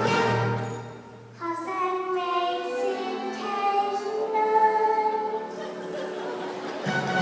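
A children's chorus singing with music in a live stage musical, with a short break about a second in before the singing resumes.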